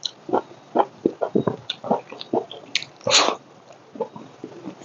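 Close-miked eating sounds of a person chewing a mouthful of rice: wet chewing and lip-smacking in short, irregular bursts, with one louder, longer breathy sound a little past three seconds in.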